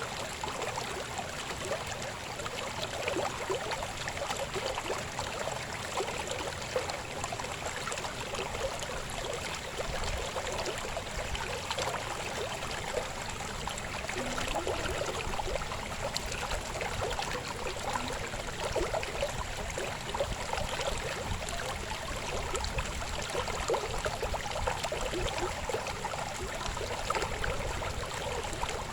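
Shallow river babbling and gurgling over stones, a steady flow of water.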